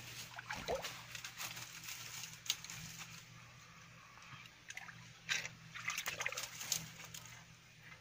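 A hand splashing and sloshing through shallow stream water in a string of short, irregular splashes, busiest between about five and seven seconds in.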